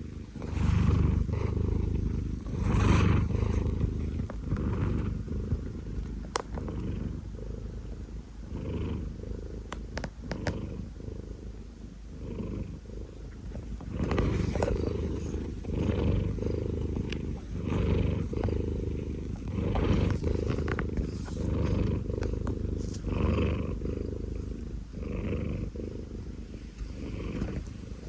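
A 19-year-old cat snoring, a low, rough breath swelling and fading about every two seconds.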